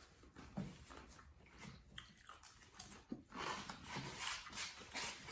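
Faint chewing and crunching of corn tostadas with dip, in scattered short bites that grow busier over the last couple of seconds.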